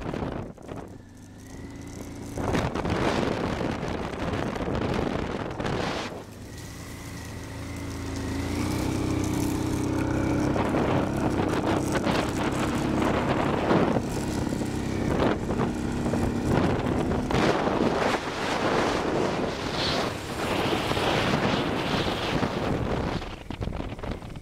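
Honda Transalp V-twin motorcycle engine running under load in snow: the revs fall off near the start, then climb over several seconds and hold steady. Wind buffets the microphone.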